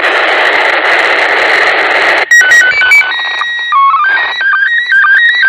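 Static hiss from a handheld FM radio receiver gives way suddenly, about two seconds in, to the International Space Station's slow-scan television (SSTV) signal. A quick run of stepped beeps and a held tone with a low blip opens the transmission, then comes the fast, rhythmic warbling of image lines being sent, here in PD120 mode.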